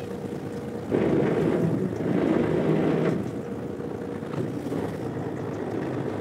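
Wind and waves around a drifting fishing boat over a steady engine hum, with a louder rush of wind and sea noise about a second in that lasts about two seconds.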